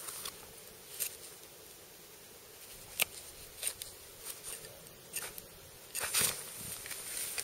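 Hunting knife cutting and scraping through deer hide and meat: scattered short slicing and scraping sounds, the sharpest about three seconds in and a cluster around six seconds.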